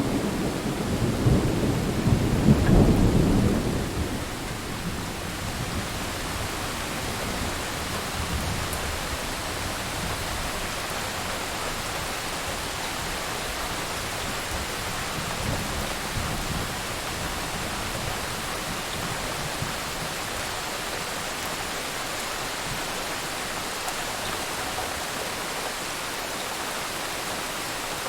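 Thunderstorm: a low rumble of thunder for the first few seconds that dies away, leaving steady rain falling, with a faint distant rumble about halfway through.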